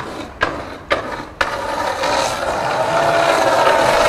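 Skateboard landing off a set of stairs: several sharp clacks of the board in the first second and a half, then its wheels rolling steadily over asphalt.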